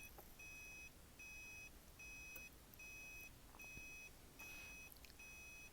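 Faint electronic beeping, a steady high tone repeating about every 0.8 seconds, with a few faint ticks.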